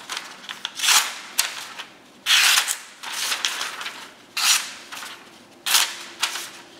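A freshly sharpened, razor-sharp folding knife slicing through thin phone book paper: about seven quick, crisp cuts, two of them longer drawn strokes near the middle.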